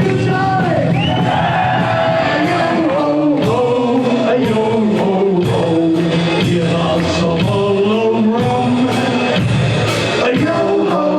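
Heavy metal band playing live: a sung lead vocal over guitars and a steady drum beat, with shouts from the crowd.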